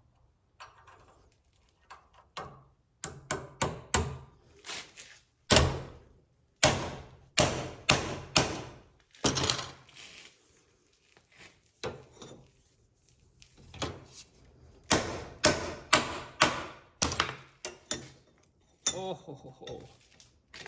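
An irregular series of heavy knocks and thunks, more than a dozen sharp blows in two main clusters, as a part is forced into place on a milling machine.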